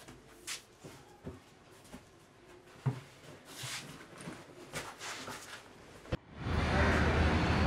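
Faint scattered rustles and soft knocks of hands groping along a wall and touching a backpack. About six seconds in, a loud, steady outdoor background noise with a low hum cuts in abruptly.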